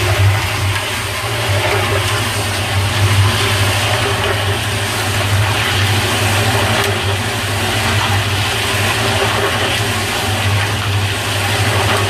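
Concrete mixer running steadily, its motor giving a constant low hum while the paddle churns a dry mix of cement, sand, aggregate and pigment with a continuous gritty hiss.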